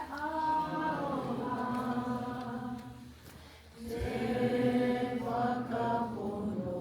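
A group of voices singing a Māori waiata together, in support of the speech just given. They sing in long held phrases, with a short pause for breath a little after halfway before the singing comes back in.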